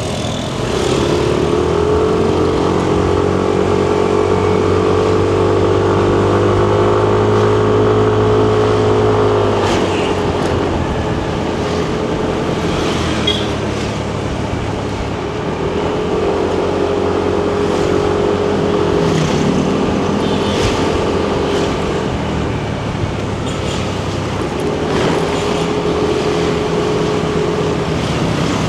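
Yamaha Nmax 155 scooter's single-cylinder engine pulling under throttle at a steady note for several seconds, easing off, then pulling again twice more, over road and wind noise.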